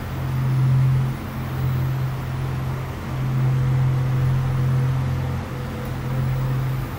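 A steady low hum that swells and eases every one to two seconds.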